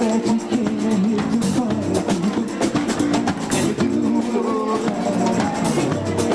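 A band playing an instrumental passage: guitar over a steady drum beat.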